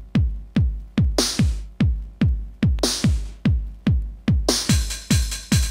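Techno played from vinyl in a DJ mix: a drum-machine kick on every beat, about 140 beats a minute, with a hissing noise hit twice in the first three seconds. About four and a half seconds in, quick hi-hats and a high held tone come in over the kick.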